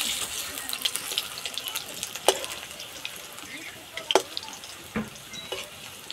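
Spinach pakoras sizzling in hot oil in an iron kadai, the hiss loudest at the start, while a metal spatula turning them knocks and scrapes against the pan a few times.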